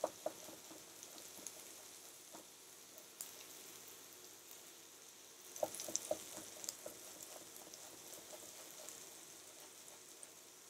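Onions frying in coconut fat in a wok, a faint steady sizzle. A knife taps on a wooden cutting board as garlic cloves are sliced, a couple of taps at the start and a cluster of taps about halfway through.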